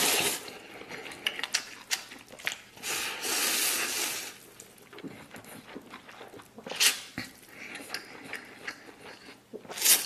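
A person slurping instant noodles and chewing with mouth sounds: a slurp at the start, a longer one about three to four seconds in, shorter ones near seven seconds and at the end, with wet smacking and small clicks between.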